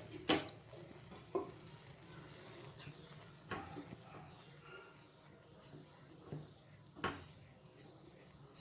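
A spoon or spatula tapping and scraping now and then in a pan of thick, simmering milk and chhena as cardamom powder goes in, with a few sharp knocks, the loudest about seven seconds in. Under it is a faint steady high-pitched chirring.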